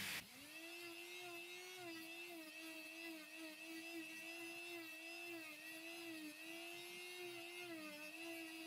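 A small power tool's electric motor running with a steady high whine, its pitch dipping and wavering slightly as it works.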